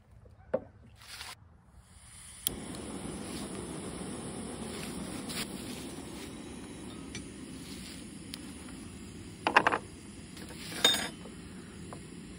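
A sharp click, then the steady hiss of a screw-on canister gas camping stove burning, with two short clatters of cookware near the end as a cast-iron skillet and plate are handled on the table.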